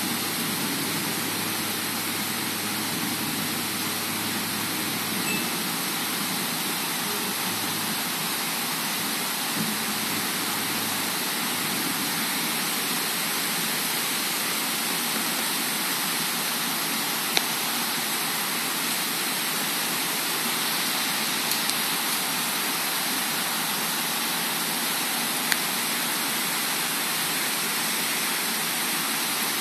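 Heavy rain pouring steadily, an even hiss with no let-up, with a couple of sharp ticks in the second half.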